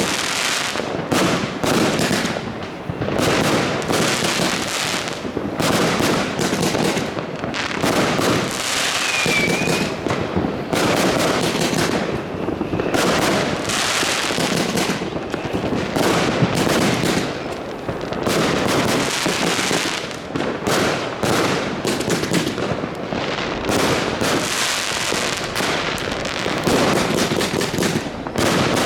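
New Year's Eve fireworks and firecrackers: a dense, nearly unbroken barrage of bangs and crackling. About nine seconds in there is a brief whistle.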